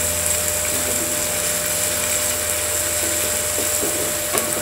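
Chopped onions and ginger-garlic paste sizzling steadily in mustard oil in a pan as they are stirred with a wooden spatula, over a steady low hum.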